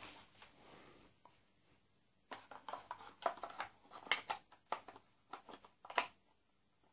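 Short clicks and scrapes as a magazine is pushed and fumbled at the magazine well of a G&G M1 Garand airsoft rifle without seating, a cluster of them from about two seconds in to about six.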